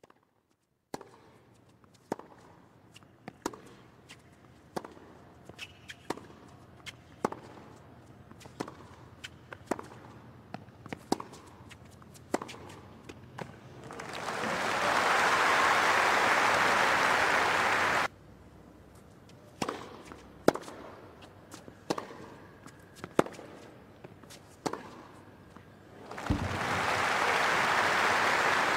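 Tennis rally: sharp pops of the ball being struck by racquets, about one a second. Each rally is followed by crowd applause that lasts a few seconds and cuts off suddenly. The pattern happens twice.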